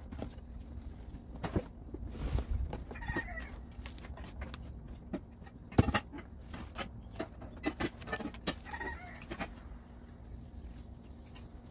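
Scissors snipping zip ties and the e-bike's packing material being handled: a string of sharp clicks and knocks, the loudest about halfway through, with a couple of short squeaks.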